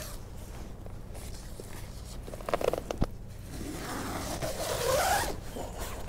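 Rustling and handling, then a tent door zipper drawn open in one long pull lasting about a second and a half, near the end.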